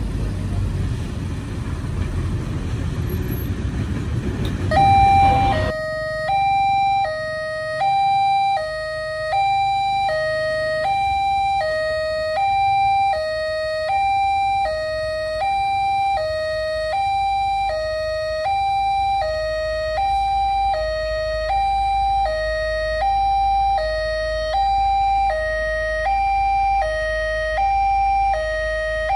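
Electronic two-tone warning alarm of an Indonesian railway level crossing, alternating a higher and a lower tone about once a second, which starts about five seconds in as the barrier comes down. Before it there is a low rumbling noise.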